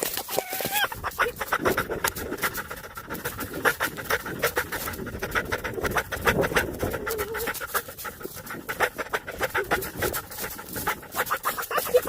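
A dog panting rapidly, a fast run of short breaths.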